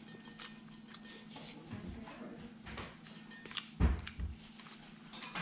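Metal fork clicking and scraping on a plate during eating, as quiet scattered ticks over a faint steady hum, with two dull low thumps about four seconds in.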